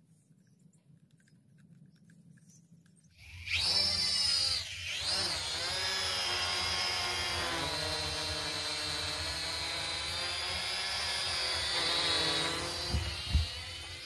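Small D74 toy quadcopter's electric motors and propellers starting suddenly about three seconds in. The pitch swoops up and down as the throttle changes, then settles into a steady high whine that wavers slightly in flight. Two short knocks come near the end.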